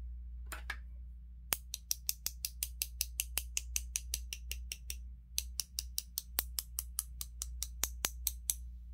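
Two paintbrushes knocked together in quick taps, about six a second, to flick white acrylic paint off the bristles as splattered stars. The tapping runs in two bursts with a short break about halfway.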